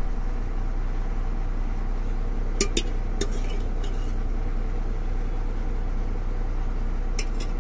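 A steady low hum, with light clinks of dishes: a few in quick succession a little under three seconds in and one more near the end.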